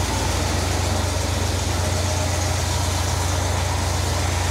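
Cadillac 472 cubic-inch V8 running steadily on fast idle just after start-up, fed by a freshly restored Quadrajet four-barrel carburetor.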